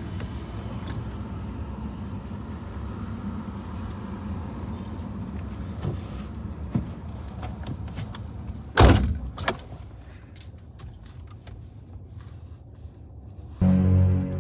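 A car's low rumble, which drops away after a car door shuts with a loud thud about nine seconds in. A short low drone sounds near the end.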